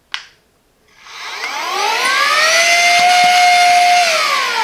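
A click, then the Silvercrest SHM A1 mini cordless handheld vacuum's motor spins up with a rising whine, runs steadily for about two seconds, and winds down with a falling whine.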